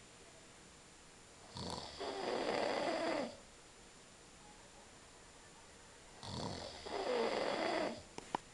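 A man snoring: two long, loud snores about four and a half seconds apart, each lasting a second and a half or more. Two short clicks come near the end.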